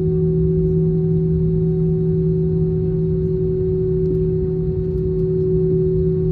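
Steady cabin drone of an Airbus A321 taxiing, its CFM56 engines at idle: a low rumble with two held humming tones, unchanging throughout.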